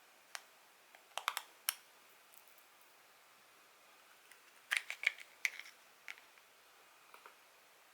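Scattered light clicks and taps of small hard parts or tools being handled during fishing reel disassembly. A few single clicks come first, then a quick run of clicks about five seconds in.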